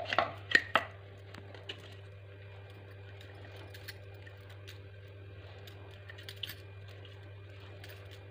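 A few light clicks and taps of kitchen utensils in the first second, then a faint steady low hum with only an occasional soft click.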